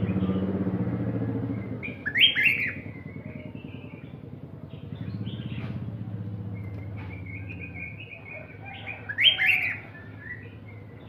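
Songbirds singing: a loud burst of quick, falling whistled notes about two seconds in and again near the end, over softer continuous twittering. A low hum runs underneath at times.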